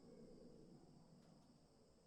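Very faint forest ambience track: insects give a steady high drone over a soft low hum, close to silence.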